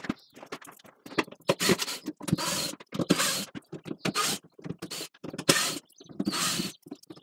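Cordless drill backing screws out of a plywood crate lid in several short bursts, with clicks and knocks between them.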